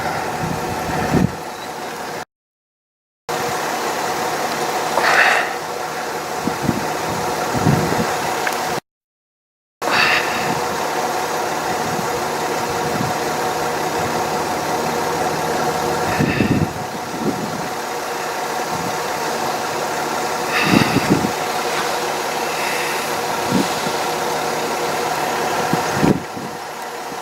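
Car engine idling steadily, with a few brief louder rustling or bumping noises over it. The sound drops out completely twice for about a second.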